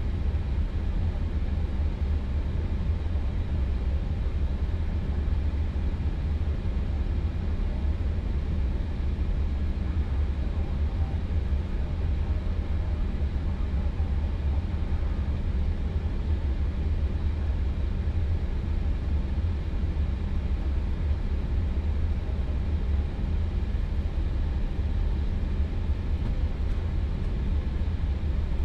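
Steady low rumble inside an Airbus A320's flight deck as it taxis after landing, the engines at idle.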